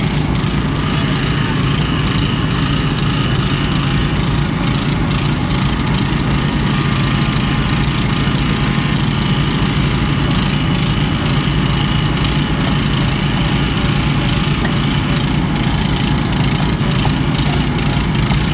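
Small gasoline engine of a portable hydraulic rescue-tool power unit running steadily at constant speed.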